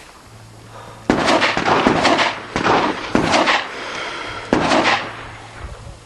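Baikal MP-153 semi-automatic shotgun firing about six shots in quick succession, each followed by a ringing echo. The first five come within about two seconds, and the last follows after a pause of over a second.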